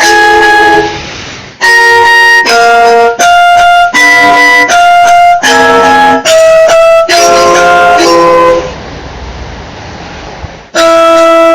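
Emergency alert alarm signal: a loud melody of held tones and chords that step to a new pitch every half second or so. It breaks twice into a short stretch of hiss, once shortly after the start and again near the end, before the tones resume.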